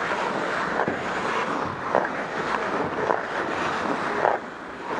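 Ice hockey skates gliding and scraping on rink ice, with a sharper stroke about once a second as a blade digs in. A steady rushing noise, with air moving over the microphone, runs under it.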